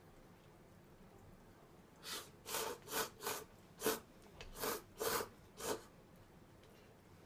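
A person slurping instant cup noodles off chopsticks: about eight short, sharp sucking slurps in quick succession, starting about two seconds in and stopping near six seconds.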